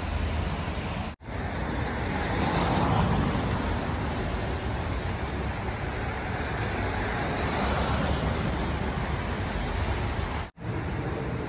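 Steady road traffic noise, an even rushing sound that cuts out briefly about a second in and again near the end.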